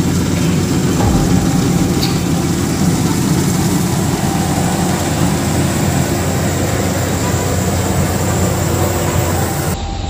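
Rice combine harvester running steadily under load, its diesel engine and threshing machinery working as it cuts and threshes the crop.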